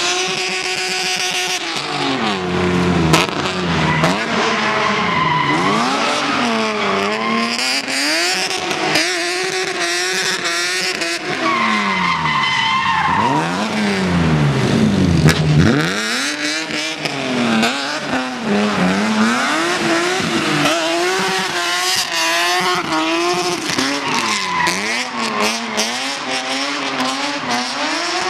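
BMW E36 drift car's engine revving up and down repeatedly as it slides, with its tyres squealing and skidding on the tarmac. The revs rise and fall every second or two, with one long deep drop and climb about halfway through.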